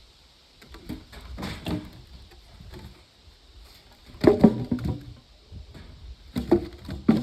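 Wood being handled: clusters of knocks and clatter, in three bursts, about a second in, around four seconds in, and near the end.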